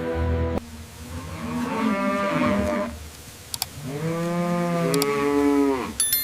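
Cattle mooing: a shorter call about a second and a half in, then a longer, louder one about four seconds in whose pitch rises and then falls.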